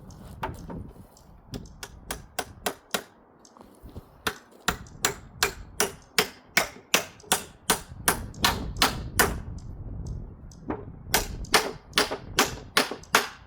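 A hammer driving a nail into wood: runs of sharp, quick strikes, about two to three a second, with two short pauses.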